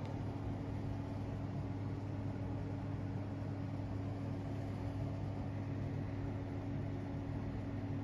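Steady low mechanical hum over a constant hiss, unchanging throughout.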